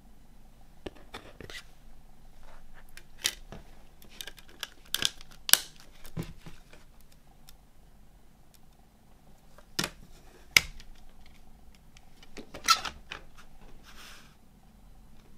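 Handling of a plastic CD jewel case: a disc pressed back onto its hub and the case closed, with about six sharp plastic clicks and snaps spread through and a soft rustle near the end.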